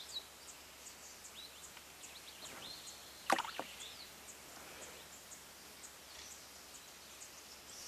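Faint outdoor ambience: small birds giving short chirps that slide down in pitch, over a faint high ticking repeated a couple of times a second. One short sharp click comes a little over three seconds in.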